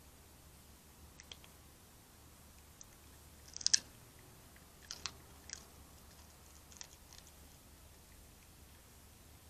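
Red fox chewing and crunching chicken bones: scattered, irregular crunches and clicks, the loudest cluster a little under four seconds in.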